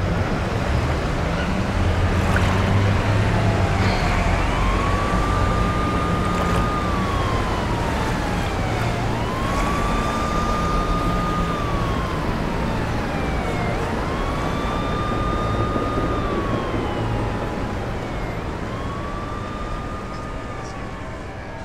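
Emergency-vehicle siren wailing: the pitch rises quickly, holds, then slides slowly down, repeating about every four and a half seconds. Beneath it runs a steady low rumble.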